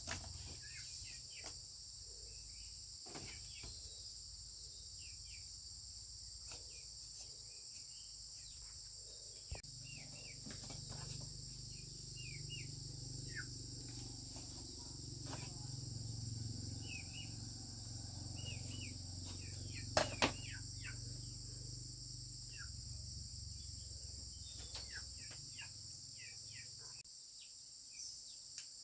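Steady high chorus of crickets or similar insects with scattered short bird chirps. A low rumble runs under most of it, and two sharp knocks come close together about two-thirds of the way through.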